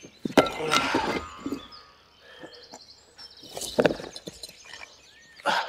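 Heavy stones dropped and knocking against rubble, in a few separate clatters about half a second in, just under four seconds in, and near the end. Birds chirp in the background.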